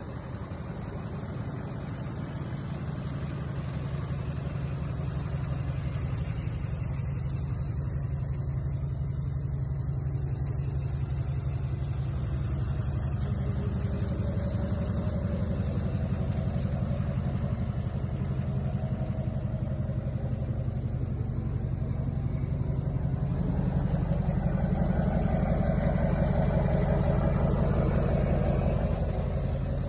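Duramax V8 turbodiesel in a GMC pickup running steadily with no revving, getting louder over the last several seconds.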